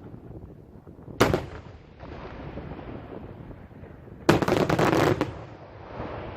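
Fireworks going off: one sharp bang about a second in, then a rapid string of cracking reports lasting about a second, with echoes trailing away after each.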